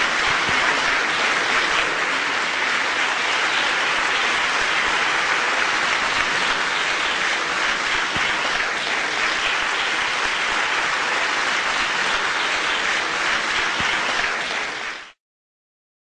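Large audience applauding, a steady dense clatter of many hands clapping, cut off abruptly near the end.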